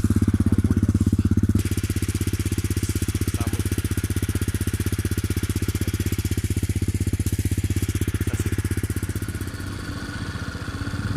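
Small motorcycle engine running with a steady, fast pulsing beat. It drops in level about a second and a half in and eases off again near the end.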